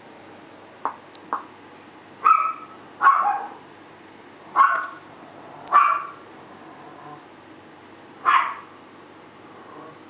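English bulldog puppies barking: five short barks spaced out over several seconds, after two brief sharp sounds about a second in.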